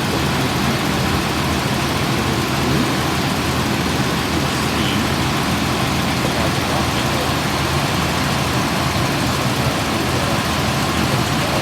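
1964 Imperial Crown's 413 V8 engine idling steadily. It has a vacuum leak at the carburetor base gasket.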